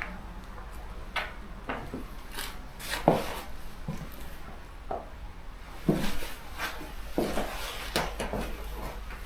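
Irregular clacks and knocks of old oven bricks and mortar chunks being handled and set down, with some scraping between them.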